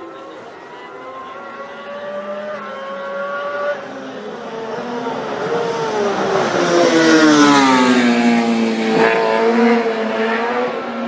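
Racing motorcycle engine at high revs approaching along a road, its pitch rising in steps through the gears. It then grows much louder, and the pitch sweeps down before levelling off.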